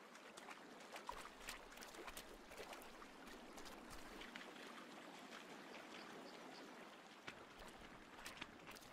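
Faint flowing river water, a soft even rush with scattered small ticks and drips.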